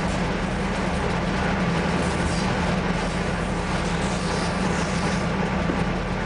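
Cab noise of an ST43 diesel-electric locomotive at speed: its V12 diesel engine drones steadily under the noise of wheels on the rails. The locomotive is hauling a train of stone-loaded freight wagons.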